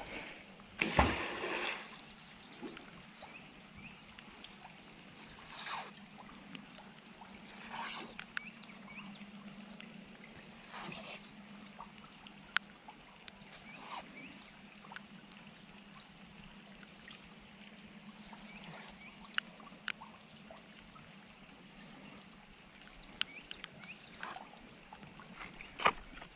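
A fishing magnet on a rope splashes into a canal about a second in. Softer splashes and dripping follow at intervals as the wet rope is pulled back through the water.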